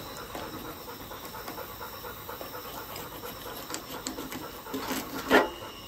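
A knife scraping scales off a bluegill in short, repeated strokes, with a dog panting close by. About five seconds in there is a single louder knock.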